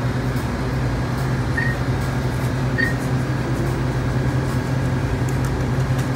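Steady low hum of running store machinery, with two short, faint beeps a little over a second apart.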